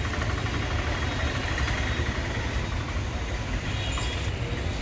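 Outdoor traffic noise: vehicle engines running over a steady low rumble, with no single sound standing out.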